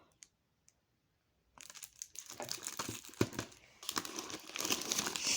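Unboxing packaging being handled and unwrapped: a dense rustle that starts after about a second and a half of near silence and grows louder toward the end.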